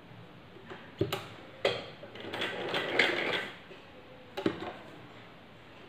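Sewing machine stitching a short run along a folded cloth edge, a rapid clatter lasting about a second. Sharp clicks of the machine's mechanism come about a second in, again half a second later, and once more near the end.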